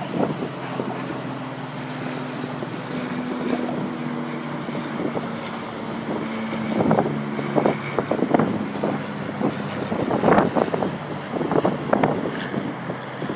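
An engine running steadily, its pitch easing down slightly, with gusts of wind buffeting the microphone, heavier in the second half.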